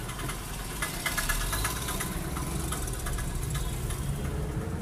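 Car engine and road noise heard from inside the cabin while driving, a steady low rumble. A brief high rattling clatter comes about a second in.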